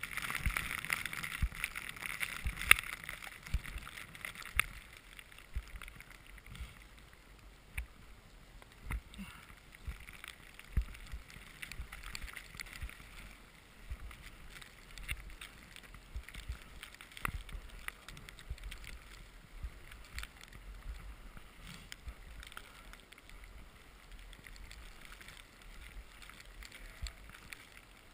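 Skis sliding and hissing through fresh powder snow, with scattered low thumps and wind on a body-mounted camera's microphone. The hiss is loudest in the first few seconds, then eases off.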